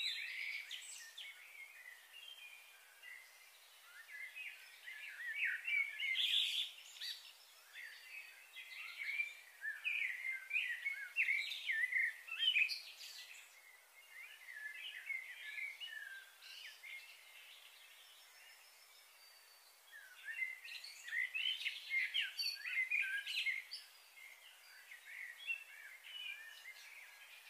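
Small birds chirping and twittering in quick, overlapping short notes, coming in bouts with quieter stretches in between.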